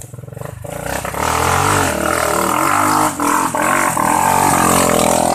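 A vehicle engine revving hard. It climbs in pitch over the first second or so, then is held high with small rises and dips.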